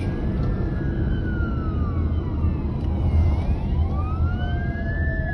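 Several police car sirens wailing together, their pitches sweeping up and down and overlapping, over the low rumble of a car on the highway. The sirens rise and grow stronger near the end.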